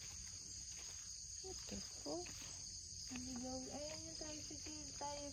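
Steady high-pitched chirring of insects in rural grassland, with a faint voice heard from about three seconds in.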